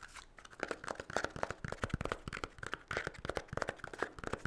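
Pages of a spiral-bound paper notebook being leafed through by hand: a quick, dense run of paper flicks and rustles.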